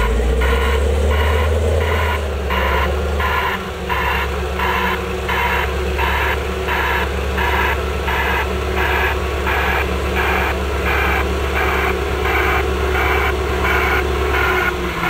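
SW300 swing-wheel low loader and its prime mover reversing: a reverse alarm beeps steadily about twice a second over the low, even drone of the heavy hauler's engine.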